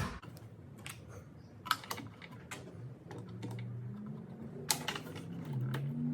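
Irregular light clicks and taps of metal parts being handled on a track saw as a blade is fitted onto its arbor and flange. A faint low steady hum comes in about three seconds in.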